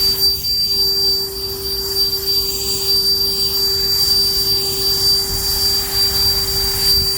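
Saker blower running at a steady speed: a constant high-pitched whine over a lower hum and rushing air.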